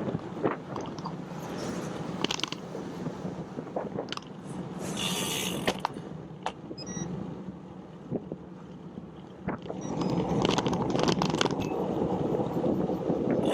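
Bicycle riding along: steady road and wind noise with scattered clicks and light rattles from the bike.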